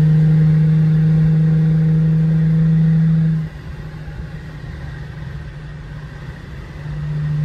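Mercedes-Benz W210 E-Class heard from inside the cabin while cruising: a steady engine drone over road noise. It drops sharply in level about three and a half seconds in and swells back near the end.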